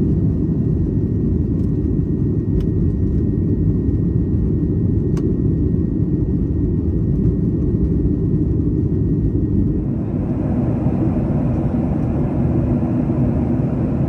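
Jet airliner cabin noise during takeoff and climb-out: a loud, steady, deep rumble of the engines at takeoff power. About ten seconds in it takes on more hiss.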